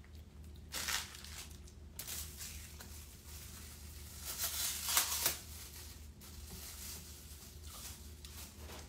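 Rustling and crinkling of takeout food packaging being handled and opened, in several bursts, the loudest about five seconds in.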